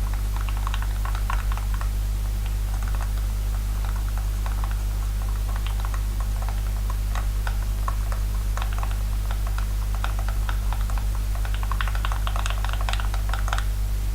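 Sticky homemade slime of liquid soap, acetone and salt being stirred and worked in a bowl, making quick irregular clicks and crackles that grow denser near the end. A steady low electrical hum runs underneath.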